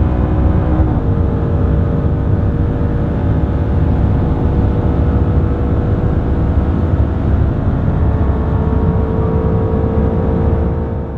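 Car at high speed on the motorway, heard from inside the cabin: a steady engine drone under heavy tyre and wind noise, holding level throughout.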